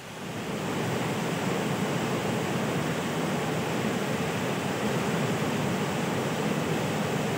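Floodwater rushing and churning through an underground car park: a steady, unbroken water noise.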